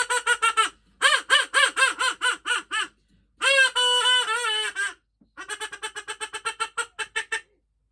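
A duck sound effect: rapid runs of quacking in four bursts. The third burst is one longer drawn-out, wavering call, and the last run is quieter and faster.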